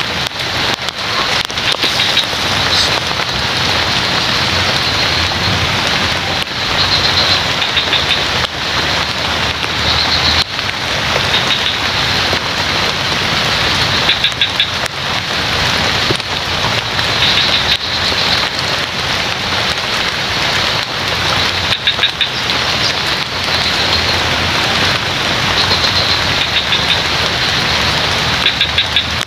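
Steady heavy rain falling on forest foliage, with frogs giving short, high, rapid trills every few seconds.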